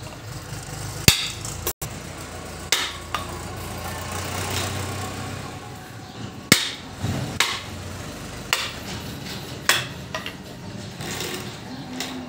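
Hammer blows on a rod driven into the end of a motor stator during rewinding, knocking the newly wound coils into place. About eight sharp, irregularly spaced knocks over a steady low hum.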